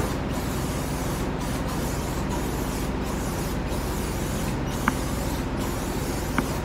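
Aerosol can of OFF! insect repellent hissing steadily in a long, near-continuous spray, with two faint brief clicks in the second half.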